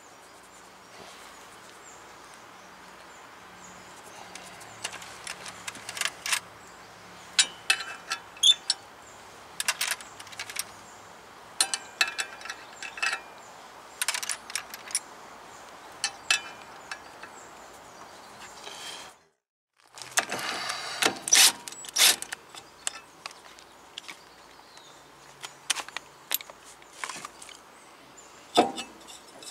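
Irregular metallic clinks and clatters of hand tools and parts being handled, several with a short ring. The sound drops out completely for a moment about two-thirds through.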